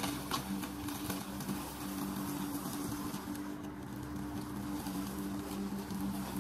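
Walk-behind lawn mower running steadily as it is pushed across grass, a constant hum with a rushing noise over it.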